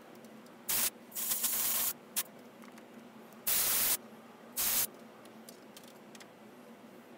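Compressed-air blow gun blasting metal chips off a lathe chuck and workpiece in about five short bursts of hiss, the longest near the start and a sharp one near the middle.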